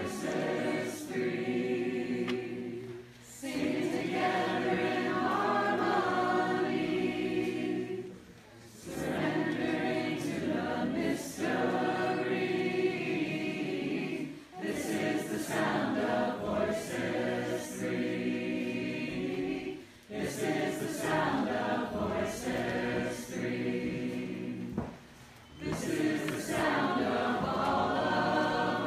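A crowd of amateur singers singing together unaccompanied, in long sung phrases separated by brief pauses for breath every five or six seconds.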